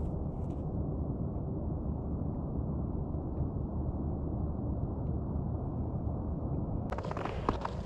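Steady low rumble of wind on the microphone; about seven seconds in, crunching footsteps in snow start.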